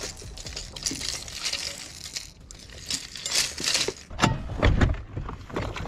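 A pile of fishing lures being handled on a boat deck: hard plastic baits, hooks and spinnerbait blades clinking and rustling against each other in irregular clicks, with a couple of heavier knocks a little after four seconds in.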